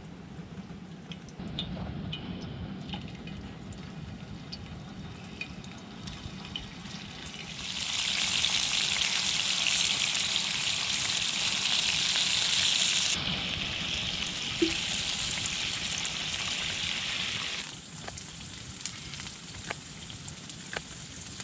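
Pieces of raw meat sizzling in hot oil on a cast-iron grill pan set on a wood stove. The sizzle starts about a third of the way in, is loudest for several seconds, eases a little and then stops abruptly. A few light taps follow, from a knife cutting on a wooden board.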